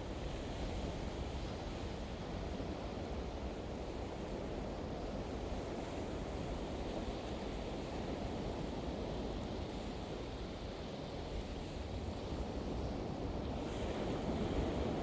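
Pacific Ocean surf washing onto the beach: a steady rush of waves that swells a little louder near the end.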